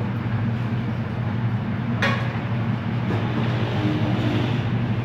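Steady low mechanical hum at an even level, with a sharp click about two seconds in.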